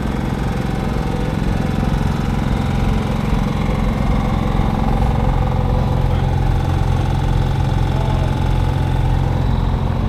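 A vehicle's engine or motor running steadily with a low, even hum.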